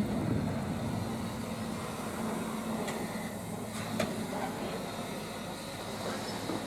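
Railway train running, a steady low rumble and hum with a few faint clicks.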